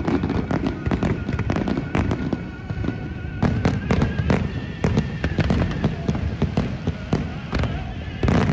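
Aerial fireworks bursting in a dense, irregular run of bangs and crackles.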